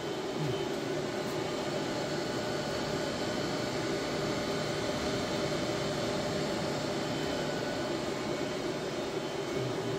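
HP Latex 360 wide-format printer running mid-print, a steady whirring hum with a few faint steady tones in it.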